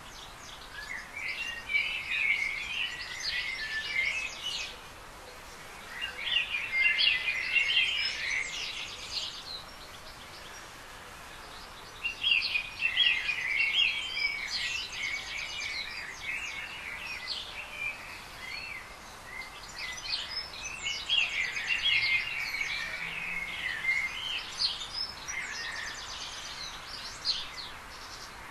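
Garden birdsong: bouts of quick, high warbling phrases a few seconds long, separated by short pauses, over a steady faint background hiss.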